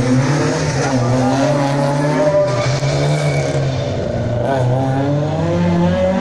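Rear-wheel-drive competition car's engine running hard, its revs rising and falling.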